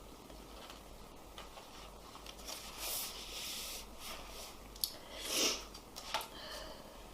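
A person with a cold sniffing and breathing noisily. There is a long airy breath or sniff between two and four seconds in, a few small clicks, and the loudest sound, a short sharp sniff, about five and a half seconds in.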